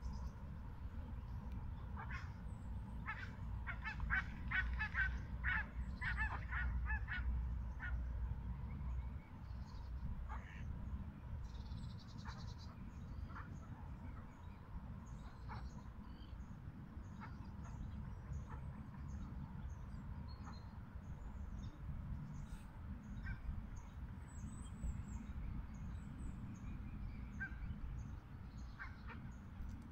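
Waterfowl calling from a group of swans, cygnets and ducks on the water: a run of short honking calls between about two and eight seconds in, then faint high peeps repeating through the rest, over a steady low rumble.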